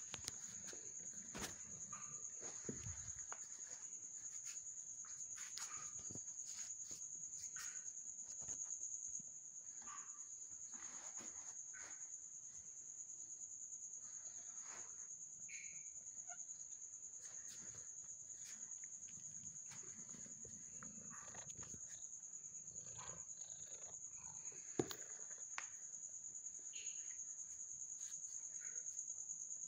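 Steady, high-pitched trill of crickets, unbroken throughout, with scattered faint clicks and light knocks and one sharp click about 25 seconds in.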